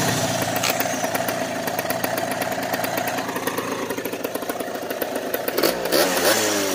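Peugeot Speedfight 100 scooter's air-cooled 100cc two-stroke single running steadily after a new crankshaft, bearings and seals were fitted. Near the end the throttle is blipped, and the pitch rises and then falls away.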